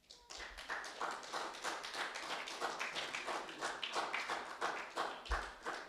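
Congregation applauding: many hands clapping together. It starts suddenly and fades near the end.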